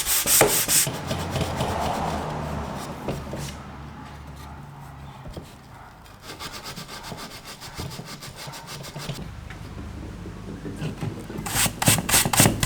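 Hand sanding of teak furniture legs with 180-grit sanding mesh: quick, even back-and-forth rasping strokes, loud at the start, softer and sparser through the middle, and loud again near the end.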